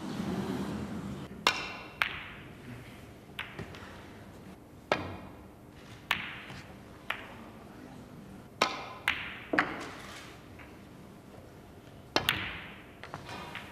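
Snooker balls clicking as shots are played: the cue striking the cue ball and balls knocking into each other. There are about a dozen sharp clicks, each ringing briefly, some coming in quick pairs or threes about half a second apart. A low rumble fills the first second.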